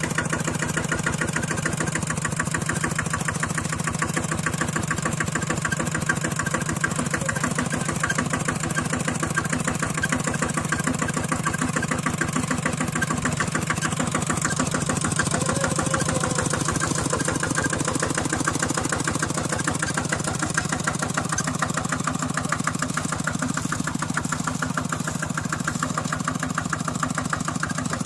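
Engine running steadily at an even speed, with a fast regular beat.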